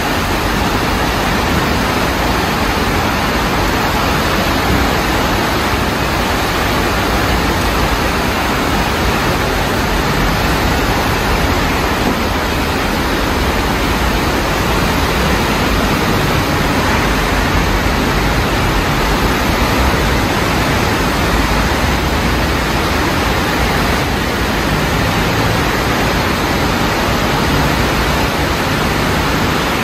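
Floodwater rushing through a swollen stream channel in heavy rain: a loud, steady rush of water.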